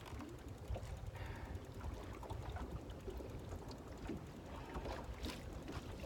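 Wind buffeting the microphone with a steady low rumble, over small waves lapping against an aluminium boat hull on choppy water. There is a brief rustle about five seconds in.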